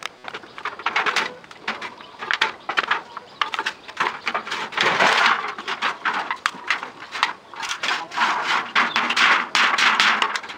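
Thin corrugated metal sheet being worked by hand, giving irregular clicking rattles and scraping rasps, densest about halfway through and near the end.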